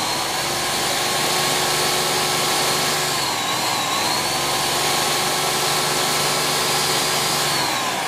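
Countertop blender puréeing a jarful of leek and potato soup: the motor runs at a steady whine, dips in pitch briefly about three and a half seconds in, and starts to slow near the end.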